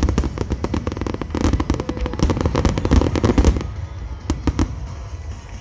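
Aerial fireworks display: a rapid, dense run of crackling pops and bangs over low booms, thinning out about three and a half seconds in to a few scattered pops.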